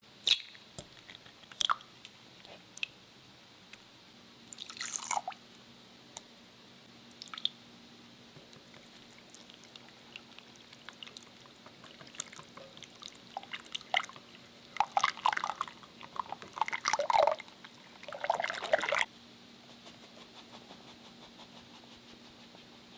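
A wire whisk beating wet muffin batter (eggs, yogurt, lemon juice) in a glass bowl, with quick splashy clicking of the wires against the glass, loudest from about 15 to 19 seconds in. Before that come a few sharp clinks and a short splash as ingredients go into the bowl.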